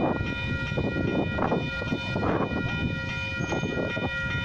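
Level crossing warning alarm sounding as a steady, high, multi-tone ring, over the rumble and rattle of a passing train.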